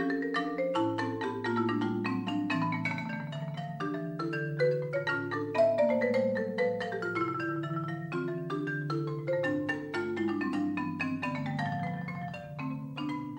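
Music played on tuned mallet percussion: quick runs of struck, ringing notes moving up and down over lower bass notes.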